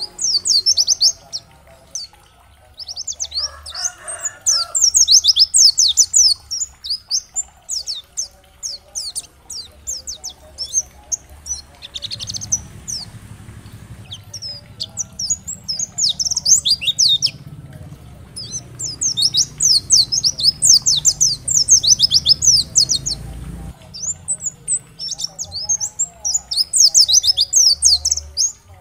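White-eye (pleci) singing: rapid, high-pitched twittering phrases of a second or two, broken by short pauses. A faint low hum lies under the song for several seconds in the middle.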